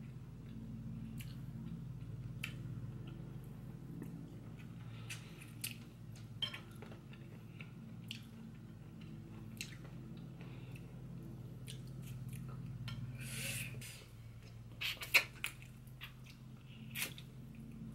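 Close-up eating sounds of someone chewing and gnawing chicken feet: irregular wet mouth noises and sharp clicks of teeth on small bones, with the loudest cluster about fifteen seconds in. A steady low hum runs underneath.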